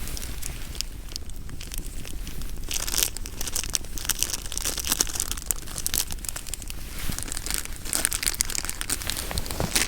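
Irregular crinkling and crackling, a dense run of small clicks that thickens around the middle and near the end.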